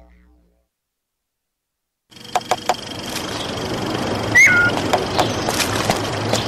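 A low droning music track fades out. After about a second and a half of silence, a steady outdoor ambience sets in, with scattered clicks and one short falling chirp a couple of seconds later.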